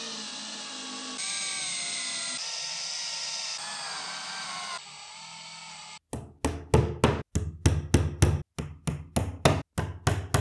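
Cordless drill driving screw-in dowels into the edge of a chipboard furniture panel, its motor whining and shifting in pitch. About six seconds in this gives way to a hammer tapping wooden dowels into their holes, about three strikes a second.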